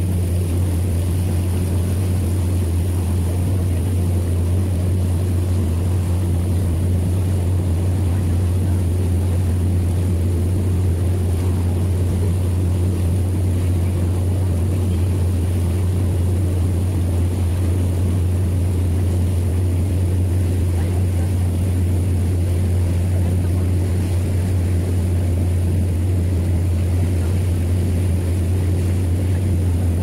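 Motorboat engine running steadily underway with an even, deep drone, with water rushing past the hull.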